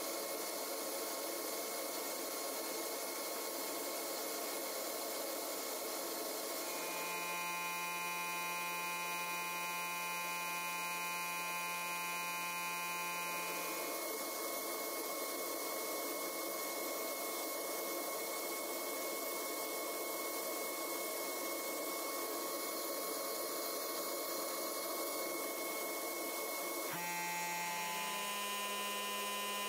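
Steady machine hum over a hiss, like a power tool's motor running continuously, its pitch shifting abruptly a few times.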